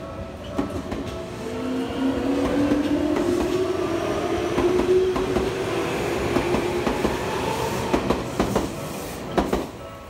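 Tokyu Oimachi Line electric commuter train passing over the level crossing as it pulls out of the station. Its motor whine rises in pitch through the first few seconds and then holds steady, and near the end the wheels clack sharply over the rail joints as the last cars go by.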